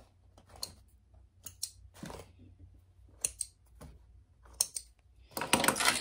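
Short, scattered rustles and clicks as a cork-and-fabric mini backpack is handled at a sewing machine and lifted off it, with a longer, louder rustle near the end.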